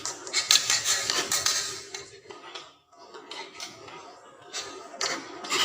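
Toys rolling and clattering down a wooden HABA marble-run slope: a dense, loud rattle of clicks for about the first two seconds, then quieter scattered knocks.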